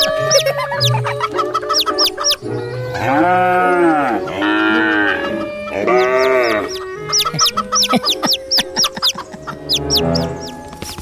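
Chickens clucking in quick, short calls, with three longer drawn-out calls in the middle, over background music.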